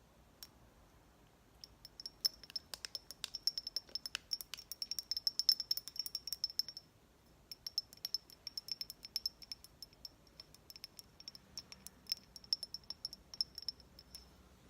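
Makeup items being handled at close range: rapid light tapping and clicking with a faint high ringing. It comes in two runs, from about a second and a half in to near the seven-second mark, then again after a short pause until just before the end.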